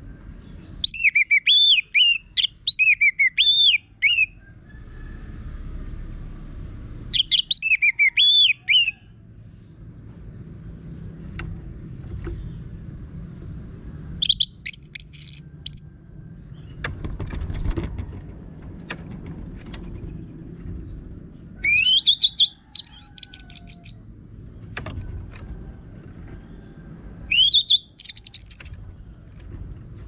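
Orange-headed thrush singing loud, rough song phrases in five bursts of one to three seconds each, with pauses of several seconds between them.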